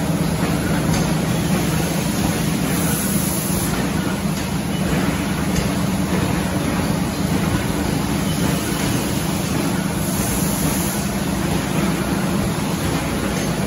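Steady drone of running thermoforming machinery: a low hum under an even hiss.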